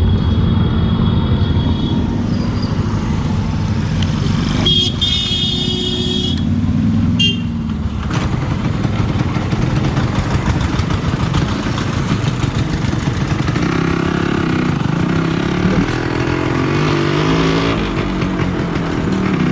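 Yamaha RX100's two-stroke single-cylinder engine running under way, its pitch rising and stepping in the second half as it pulls through the gears. A horn honks about five seconds in and briefly again a second or so later.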